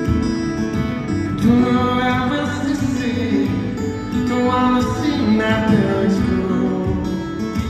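Solo acoustic guitar playing a song live through an arena sound system, with singing over it in two phrases.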